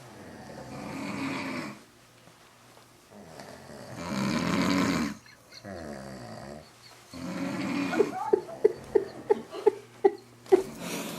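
A woman snoring heavily in deep sleep: two long snoring breaths, then a drawn-out breath with a wavering pitch, then a quick series of about nine short sharp catches in the throat near the end.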